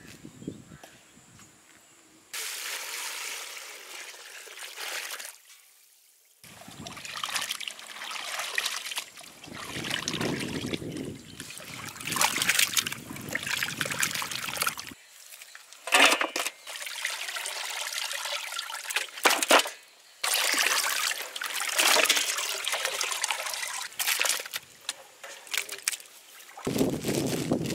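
Water sloshing and trickling as chopped goat head meat is washed in a large aluminium basin, turned over with a wooden paddle. It comes in several short stretches that start and stop abruptly, the first about two seconds in.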